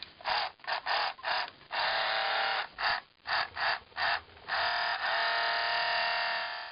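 Sound effect of a 1978 Kenner Star Wars TIE Fighter toy: its small 3-volt motor spins a gear against a clear plastic strip, making a raspy buzz. It comes in short on-off bursts, then two longer runs, the last held about two seconds.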